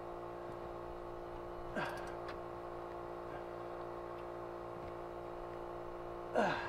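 Steady hum of running machinery in a boat's engine room, with a brief clink about two seconds in and a short sliding sound near the end as a bolt on the propeller shaft's stuffing box is tightened by hand.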